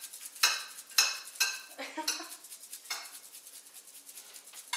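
Glass and dishware clinking in a kitchen: sharp, ringing clinks about every half second for the first three seconds, then fainter ones.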